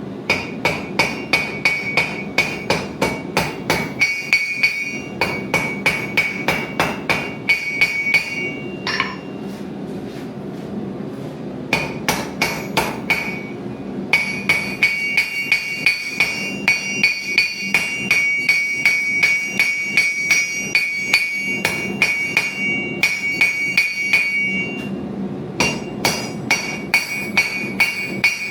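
Hand hammer striking hot metal on an anvil in forging, about two to three ringing blows a second in runs of several seconds, broken by short pauses. A steady low rushing noise runs underneath.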